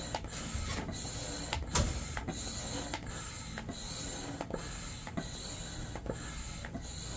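Manual air pump inflating an Intex Excursion Pro inflatable kayak, worked in steady repeated strokes about one every two-thirds of a second, with air rushing through it.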